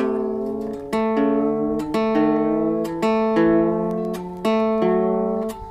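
A-style mandolin strummed about once a second while a tuning peg is turned, the chords ringing on with single notes sliding in pitch as a string pair is brought into tune.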